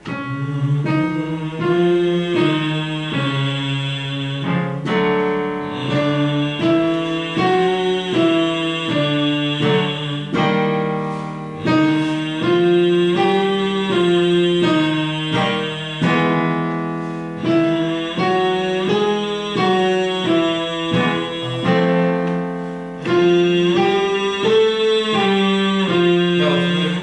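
Instrumental vocal warm-up accompaniment: a short phrase of plucked or keyboard notes stepping up and down, about two notes a second, repeated about five times with brief breaks between repeats.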